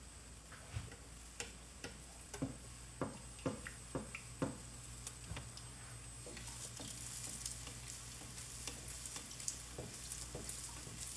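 Egg-battered chiles rellenos frying in hot oil, sizzling, with sharp taps of wooden spatulas against the pan as they are turned. The sizzle grows louder about six seconds in.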